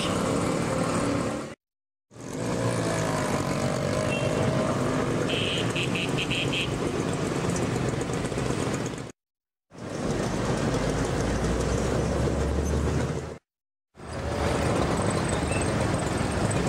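Busy city street traffic ambience: motor vehicles running and general street noise, cut off by three brief dead-silent breaks between shots. About six seconds in comes a quick run of about six short high beeps, and later a low engine rumble rises for a few seconds.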